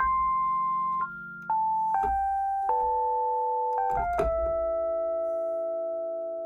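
Universal Audio Electra 88 virtual electric piano playing a factory preset: a short melody of single notes changing about once a second over held chords, settling about four seconds in on a long sustained chord that slowly fades.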